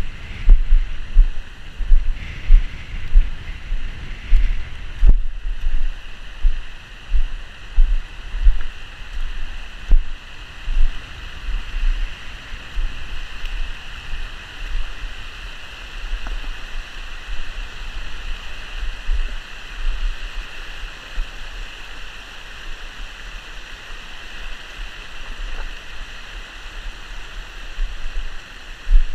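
Shallow, rocky stream rushing and splashing over stones in a steady wash. Wind buffets the microphone with low thumps, heavy in the first half and easing later.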